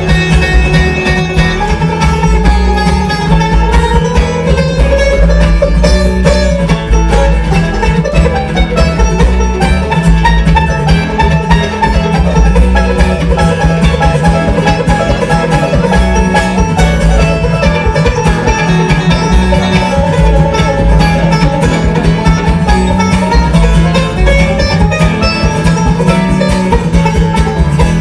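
Resonator bluegrass banjo picking an instrumental solo in a live bluegrass band, backed by a steady upright bass line and guitar.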